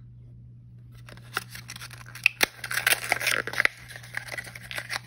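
Printed paper seal being peeled and torn off a small plastic L.O.L. Surprise blister tray with fingernails. It is a quick run of crackling, scratchy tears starting about a second in, over a faint steady hum.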